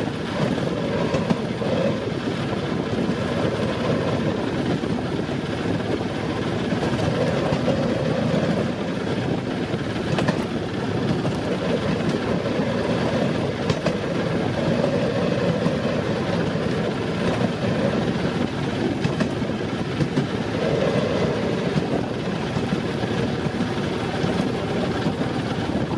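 Railroad speeder (track motor car) running along the rails: its small motor runs steadily under a constant rumble of steel wheels on track, with a few clicks as the wheels cross rail joints.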